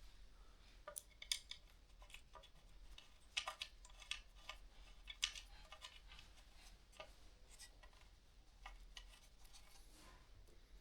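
Faint, irregular clicks and light metallic scrapes of ceiling fan blade hardware being handled as the bolts are fitted and screwed in by hand.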